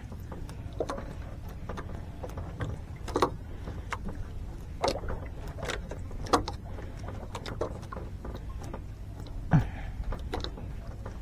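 Steady low rumble aboard a small fishing boat at sea, with scattered short knocks and clicks and a brief falling sound near the end.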